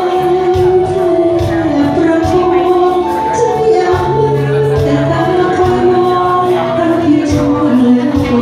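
A woman singing a sustained, gliding melody through a handheld microphone, amplified over backing music with bass notes and a steady beat.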